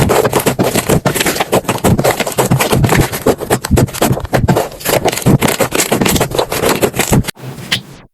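Slime being squeezed and pressed by hand, giving a dense, irregular run of crackling, popping clicks. About seven seconds in it drops to a quieter stretch, then stops.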